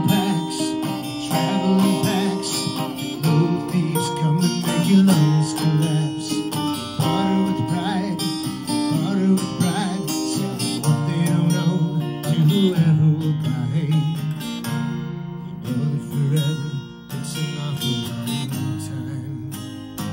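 Acoustic guitar strummed in a steady rhythm, chords changing every second or so, playing through a song.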